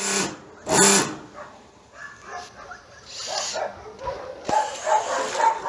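Dogs barking at an animal shelter: two loud barks at the start, then from about four seconds in a run of many overlapping barks from several dogs.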